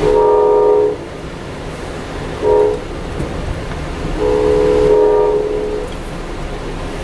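Locomotive air horn of an Amtrak passenger train sounding three blasts: long, short, then long, a chord of several notes. Heard from aboard the train over the steady running noise of the cars on the rails.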